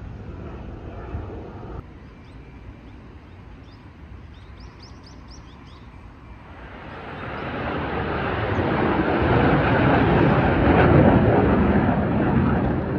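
A passing vehicle: its noise swells from about halfway through, is loudest near the end, then begins to fade.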